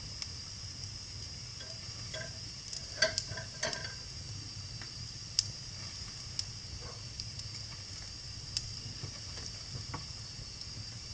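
Wood fire in a fireplace crackling: scattered sharp pops over a steady hiss, with a cluster of pops about three seconds in and a single loud pop a couple of seconds later.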